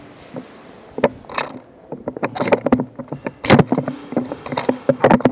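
Irregular sharp knocks and clicks, sparse for the first two seconds and then coming thick and fast, amid the movement and play of an airsoft game.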